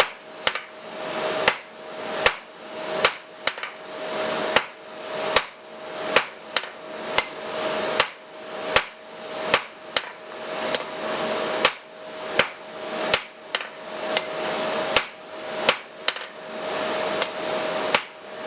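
Hand hammer planishing the hot square taper of a coil-spring-steel punch on an anvil: steady, evenly paced blows, about one and a half a second, smoothing the faces. A steady hum runs underneath.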